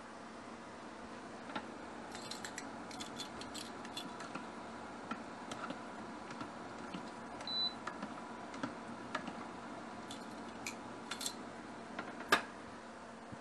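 Light scattered clicks and taps of kitchen utensils and dishes being handled over a steady hum, with a short high beep about seven and a half seconds in and a sharper clack near the end.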